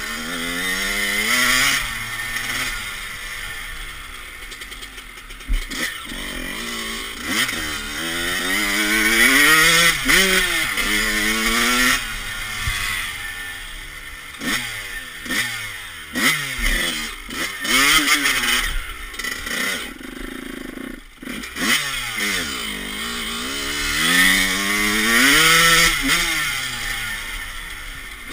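Honda CR125 two-stroke single-cylinder engine revving hard and falling back over and over as the dirt bike is ridden, its pitch climbing and dropping with each throttle opening and gear change. About three quarters of the way through the engine briefly goes almost quiet before it picks up again.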